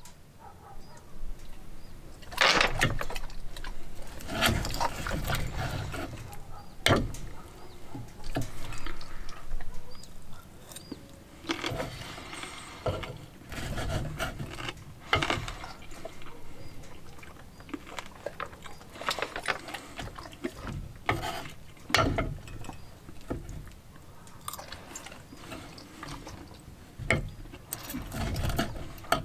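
Table knife sawing through a cooked steak on a wooden cutting board, in irregular spells of short scraping strokes, with a few sharp knocks of the blade and fork against the board.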